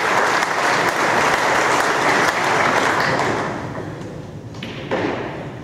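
Audience applauding, the clapping dying away after about three and a half seconds. Near the end there is a single sharp click of a cue striking a snooker ball.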